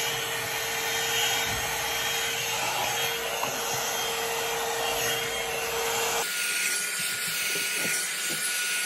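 Revlon hot-air brush, a blow-dryer brush, running on high as it dries wet hair: a steady rush of blown air with a motor hum. About six seconds in the sound shifts abruptly to a thinner, higher hum.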